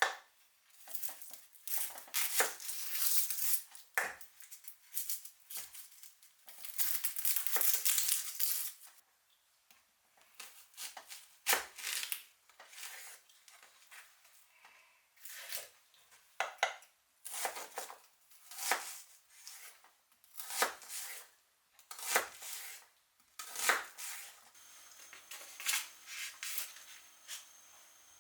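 Cooking prep handling sounds: rustling and tearing of packaging in two longer stretches, then a run of separate short knocks and scrapes of utensils against cookware or a board, about one a second.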